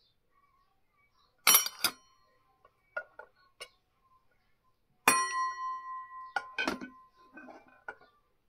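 A steel ladle clinks against a stainless steel pot and bowls while serving is ladled out: a string of sharp clinks. The loudest strike, about five seconds in, leaves the steel ringing for a couple of seconds.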